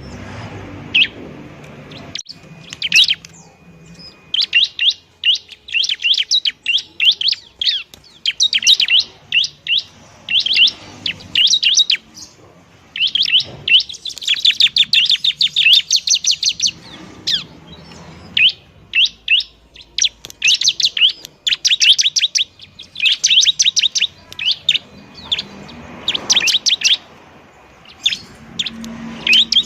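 Ciblek (bar-winged prinia) singing loudly in repeated bursts of rapid, high chip notes, fast trill-like runs broken by short pauses.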